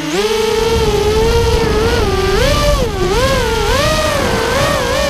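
FPV racing quadcopter's four brushless motors (RotorGeek 2204 2300kv on a Shrike 185 frame) whining in flight, heard through its onboard GoPro. The pitch holds fairly steady at first, then swings up and down again and again as the throttle changes through the turns, over a low rush of noise.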